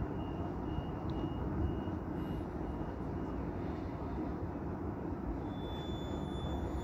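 CRRC light-rail tram running, a steady low rumble, with a faint high whine coming in near the end.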